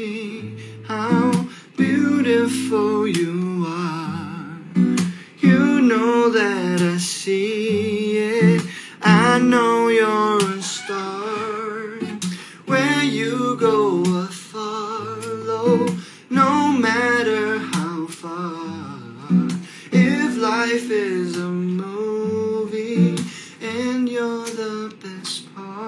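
A man singing a slow song, accompanying himself on an acoustic guitar, with held sung notes wavering in vibrato.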